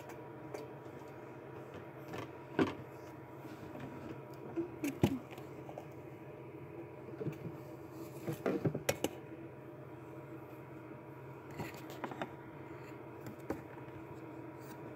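Handling noise: a few light knocks and taps as a plastic tub is set on the table and a ceramic tile is placed on its lid, with a small cluster of knocks about halfway through. A faint steady hum runs underneath.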